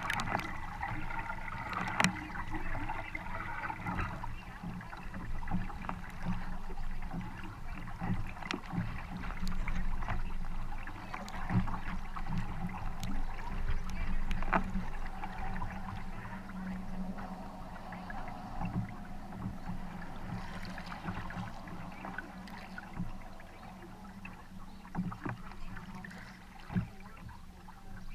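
Double-bladed paddle strokes dipping into and pulling through the water beside a wooden kayak, with steady splashing and water rushing along the hull, broken by irregular small splashes and clicks. A sharp click stands out about two seconds in.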